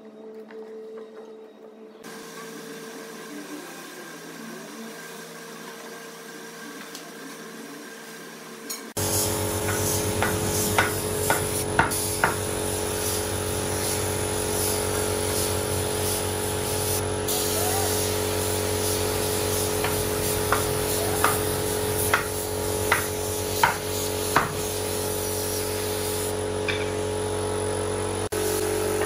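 Compressed-air paint spray gun hissing as it sprays finish, over the steady hum of a running air compressor, with sharp clicks now and then. This starts suddenly about nine seconds in, after a quieter stretch with a faint hum.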